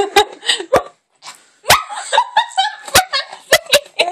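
A baby spitting out a mouthful of drink in a spluttering spray about a second and a half in, then giggling and squealing in short bursts broken by sharp spitting pops.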